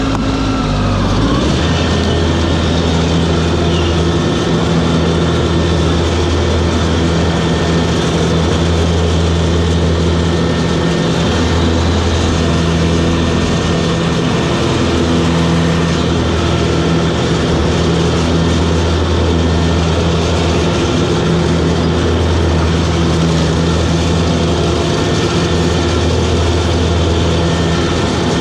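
Toro Groundsmaster 7210 zero-turn ride-on mower's diesel engine running, its pitch dropping a little about a second in and then holding steady.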